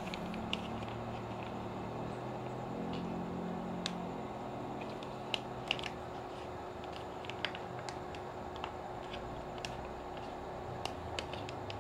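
Bubble wrap and plastic packaging being handled, with scattered sharp crackles and clicks over a steady background hum.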